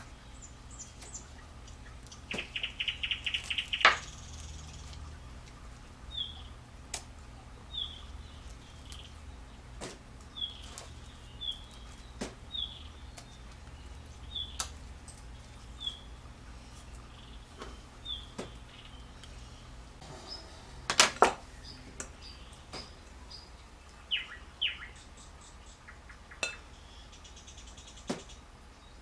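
A small bird chirping over and over, with short high chirps every second or so and a quick rattling trill about three seconds in. Sharp clicks come through now and then; the loudest is a double knock about two-thirds of the way through.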